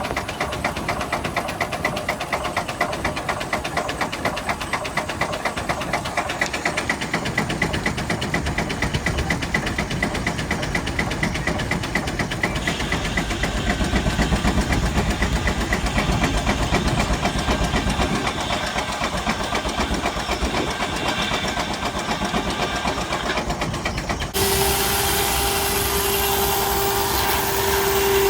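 Steam traction engine belted to a sawmill, its exhaust chuffing in a fast, even rhythm. In the middle the beat gets louder and heavier, typical of the engine lugging down as the big circular blade cuts through wood. Near the end the sound changes suddenly to a steady hum with one held tone.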